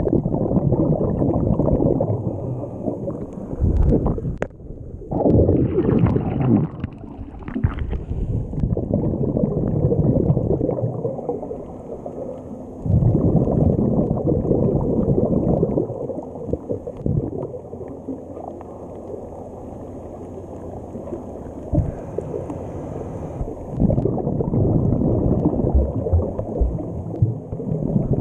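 Scuba regulator breathing heard underwater through the camera housing: a low rumble of exhaled bubbles every few seconds, with quieter stretches between breaths.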